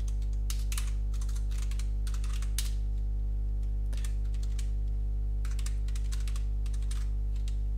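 Computer keyboard typing in short runs of quick keystrokes, with pauses between them, over a steady low electrical hum.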